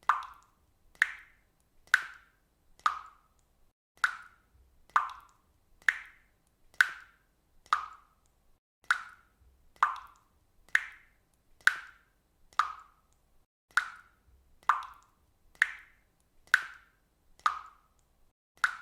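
Water dripping steadily, one drop at a time: a short plop about once a second, evenly spaced.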